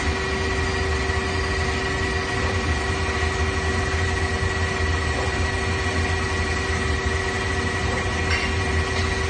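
Okuma ES-L6 CNC lathe running steadily, a constant low hum with a steady high whine over it.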